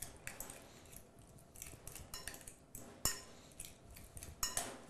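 Metal cutlery mashing and stirring flaked trout with mayonnaise and butter into a pâté in a ceramic bowl: soft scraping with irregular clinks of metal on the bowl, the sharpest about three seconds in.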